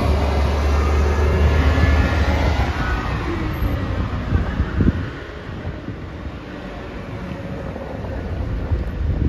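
New Flyer XN60 articulated natural-gas bus pulling away: a deep engine drone, loud as it passes close, that drops away after about five seconds as the bus drives off.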